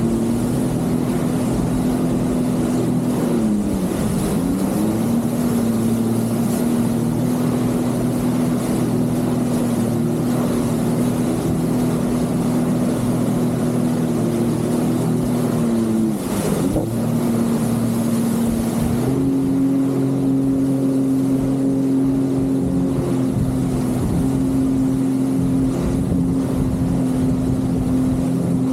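Jet ski engine running steadily at speed. Its pitch dips briefly twice, as the throttle is eased and opened again, and steps up a little about two-thirds of the way through.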